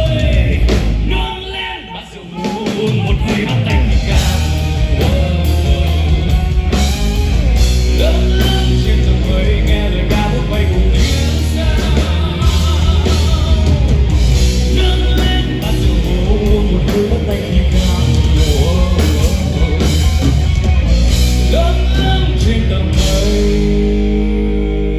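Rock band playing at full volume with drums and electric guitar, dropping away briefly about two seconds in before the full band comes back; near the end it settles into held chords.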